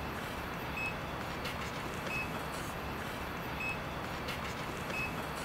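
Steady static hiss with four short, high electronic beeps, evenly spaced about one and a half seconds apart, and faint ticks between them.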